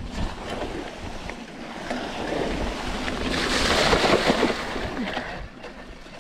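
Mountain bike tyres splashing through a shallow creek crossing: the splashing builds from about two seconds in, is loudest around four seconds, and dies away before the end.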